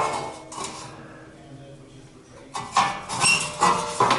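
Several sharp metallic clanks and clinks, one after another, starting about two and a half seconds in after a quiet stretch, from steel parts being handled.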